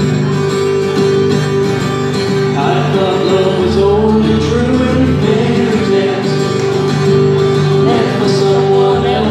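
Live acoustic guitar music played solo, chords ringing steadily under a wavering melody line, in a country style.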